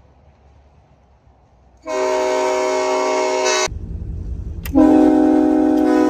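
Homemade five-chime air horn, shocker horns cut and tuned to K5LLA notes and fired through electric solenoids, sounding a loud chord twice. The first blast starts about two seconds in and lasts under two seconds. After a brief low rumble and a sharp click, a second, louder blast comes with its lowest note strongest and runs on.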